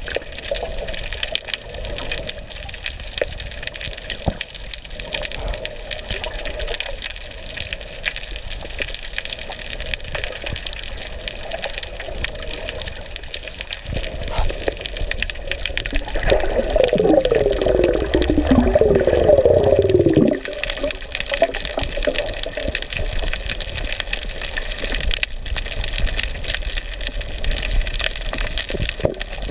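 Underwater sound picked up by a GoPro in its housing while snorkeling over a reef: a steady crackling hiss of water. About halfway through, several wavering tones slide downward for a few seconds, then stop suddenly.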